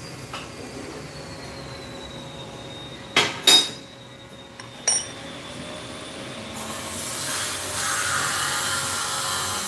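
Metal ring set down on a steel lathe carriage: two sharp metal clinks that ring briefly, then a lighter clink over a second later. A steady rushing noise comes in near the end.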